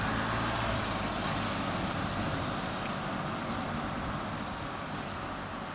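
A car driving past at low speed, its engine and tyre noise slowly fading as it moves away.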